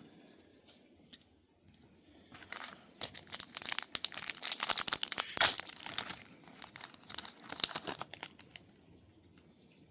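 Foil wrapper of a trading card pack being torn open and crinkled. The crackling starts a couple of seconds in, is loudest about halfway through, and dies away near the end.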